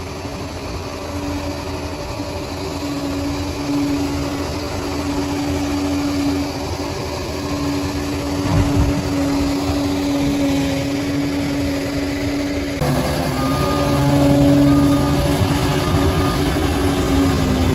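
Bulldozer's diesel engine running steadily with a low rumble. The engine sound changes abruptly about two-thirds of the way through, as if cut to another take.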